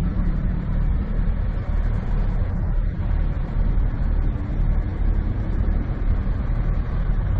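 Steady low rumble of an idling heavy-truck diesel engine.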